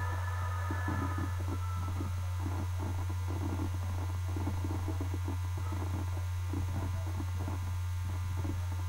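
A steady low hum runs without a break, with faint high tones fading out in the first second or so.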